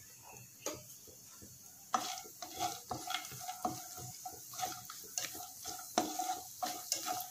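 Cashew nuts frying in ghee in a nonstick kadai and being stirred with a slotted spatula: a light sizzle, with repeated scraping strokes of the spatula across the pan starting about two seconds in.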